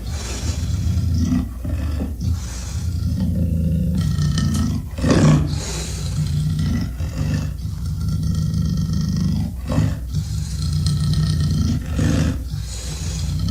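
Designed Carnotaurus dinosaur sound effect: deep roars and rumbling growls running one into the next without a break, with a louder roar about five seconds in.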